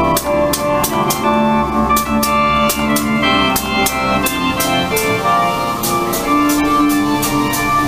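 Music with sustained organ-like chords over a steady drum beat.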